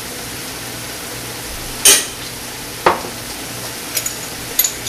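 Ground beef frying in a stainless steel skillet with a steady sizzle. A spoon clinks sharply twice, about two and three seconds in, with a few lighter taps near the end.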